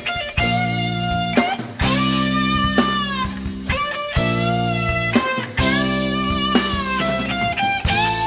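Stratocaster-style electric guitar playing a slow lead of long, sustained notes with pitch bends, over a rock band's steady chords and drums.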